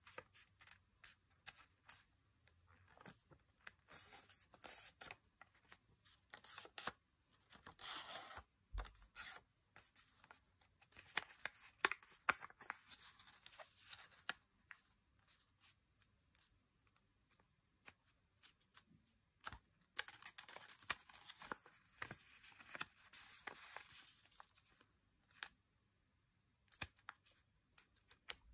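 A small square of origami paper being folded by hand: faint rustling and crinkling with sharp little crackles as folds are pressed, coming and going in several spells.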